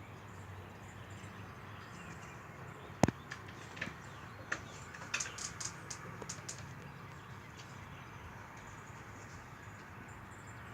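A sharp knock about three seconds in, then a run of quick light clicks and taps over the next few seconds, over a steady low hum.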